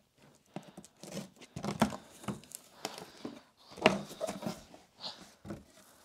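A cardboard box being opened: a knife cutting the packing tape along the top, then the cardboard flaps scraping and knocking as they are folded open, in a string of short irregular sounds with the sharpest about two-thirds of the way through.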